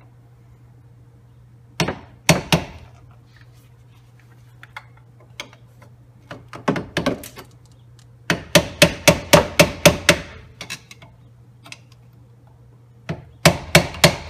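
Small hammer tapping a screwdriver wedged under the rear hub dust cap of a 2000 Plymouth Neon to drive the cap loose. A couple of separate sharp taps come first, then two quick runs of taps at about five a second, one midway and one near the end.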